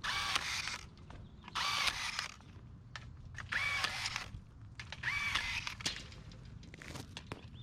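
Powered rebar tool working through four short cycles, each a motor whir of under a second that rises and falls in pitch, about one every one and a half seconds, as bars are tied or cut in quick succession.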